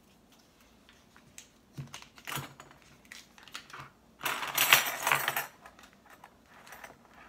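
Small clicks and taps of kitchen handling, then about a second of crinkling a little past the middle as the paper wrapper of a stick of butter is opened and a tablespoon portioned off.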